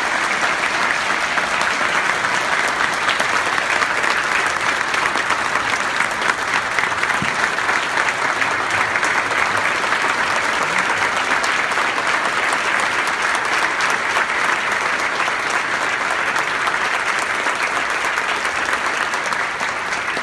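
Standing ovation: a large audience clapping loudly and steadily, a dense wash of applause that never lets up.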